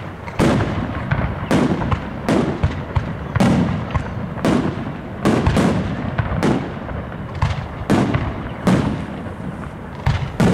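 Aerial firework shells bursting overhead in quick succession: about a dozen sharp booms, roughly one a second, each trailing off in a rumbling echo.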